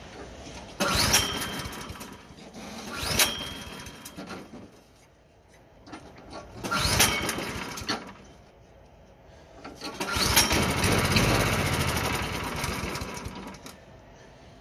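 Murray snowblower's 163cc Briggs & Stratton engine being cranked four times in separate attempts, each starting sharply with a rising whir. The last attempt, about two-thirds of the way in, runs longest. The engine is flooded from earlier over-cranking and will not start.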